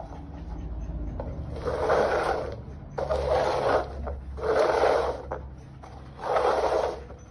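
Plastic cups being slid across a tile floor as they are shuffled: four scraping slides of just under a second each, about a second and a half apart.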